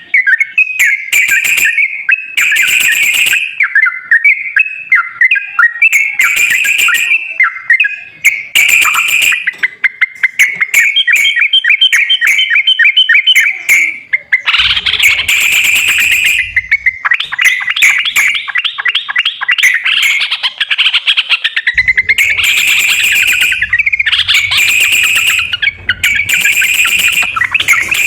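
Yellow-vented bulbul song played as a lure recording: loud, repeated chirping phrases, with fast trilled runs about halfway through and again later.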